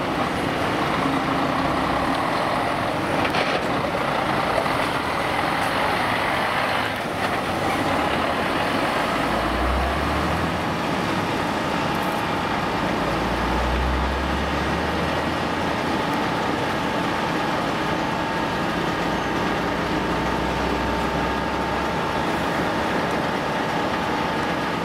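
Heavy diesel engine of a MAN fire-service water tanker running steadily, with a deeper rumble at times.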